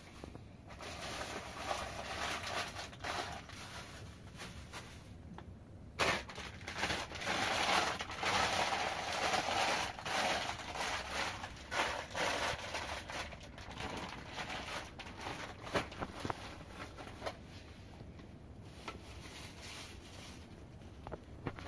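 Thin plastic shopping bag crinkling and rustling in irregular bursts as it is handled, with small knocks and clicks, loudest in the middle.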